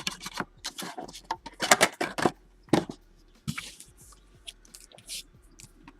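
Trading-card packs and their cardboard retail box being handled: a quick run of crinkling and rustling bursts, busiest in the first half, thinning out to a few bursts later.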